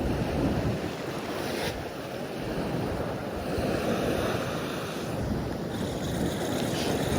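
Sea waves washing against the rocks, swelling and easing, with wind buffeting the microphone.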